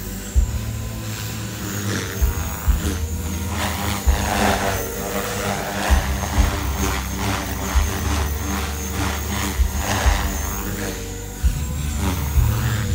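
Gaui X3 electric RC helicopter in flight, its motor and rotor giving a steady high whine over a lower drone. Irregular low thumps and rumbles run through it.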